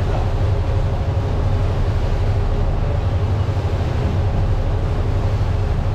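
A river boat's engines running steadily with a low drone, over the rush of its churning wake and wind on the microphone.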